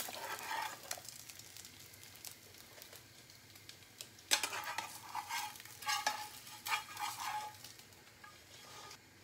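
Metal slotted spatula scraping against a frying pan as fried eggs are cut and pushed off onto a plate, over a light sizzle of the eggs frying. A few scrapes come at the start, then a run of scrapes and clinks from about four seconds in.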